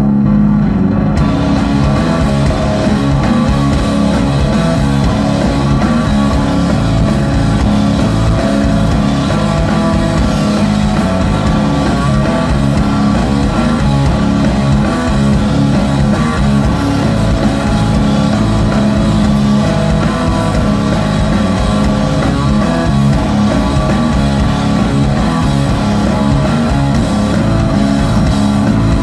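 Stoner rock band playing live: electric guitar, bass guitar and drum kit.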